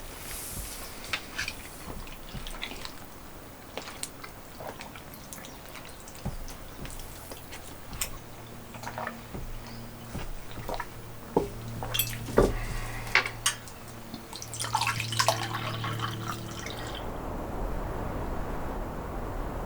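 Kitchen sounds: light clinks and knocks of dishes and utensils with water dripping and running. A low steady hum sounds through the middle, then near the end everything gives way to a steady hiss.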